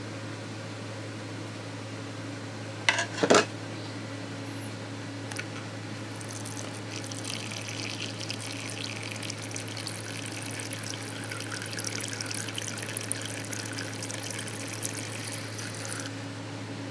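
A thin jet of water squirted into a plastic tarantula enclosure, splashing onto the leaves and gravel from about six seconds in for some ten seconds, then stopping suddenly. A couple of sharp clicks come about three seconds in.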